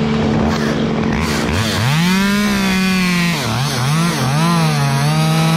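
Stihl chainsaw revving up about one and a half seconds in and cutting into the oak trunk to drop the top, its engine pitch dipping and recovering as the chain bites, over a steady engine drone.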